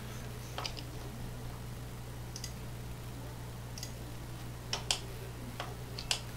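A handful of short, sharp computer mouse clicks, spaced irregularly about a second apart, over a steady low electrical hum.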